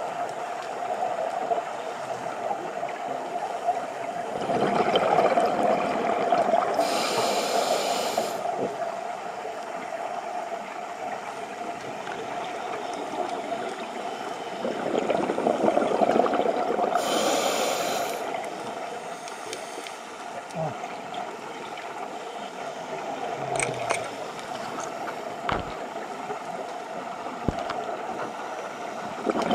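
Scuba regulator breathing heard underwater: two long breaths, each a swell of bubbling with a sharp hiss from the regulator, over a steady underwater murmur. A few small clicks near the end.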